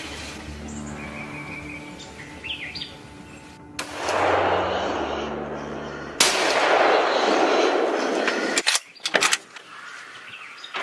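Birds chirp, then a 6.5 Creedmoor hunting rifle fires a single loud shot about six seconds in at a feral hog. Harsh, noisy sound runs on for a couple of seconds after the shot, which the hunter takes for the hit sow squealing. A few sharp clicks follow.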